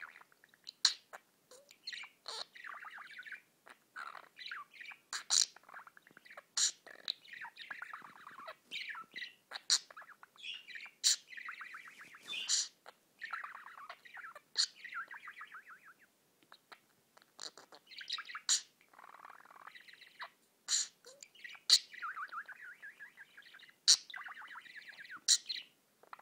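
Budgerigar warbling: a steady, rambling chatter of fast trills and clicks, broken every couple of seconds by sharp, loud high-pitched chirps.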